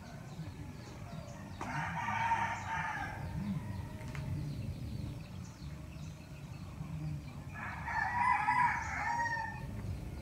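A rooster crowing twice, a few seconds apart, each crow lasting about a second and a half.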